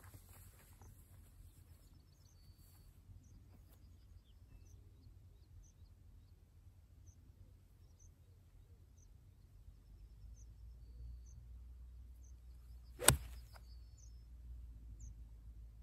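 A single sharp click of an iron club striking a golf ball on a full approach swing, about thirteen seconds in.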